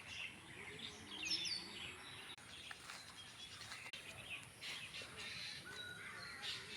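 Birds chirping with short, quick falling calls over a steady background hiss of outdoor noise.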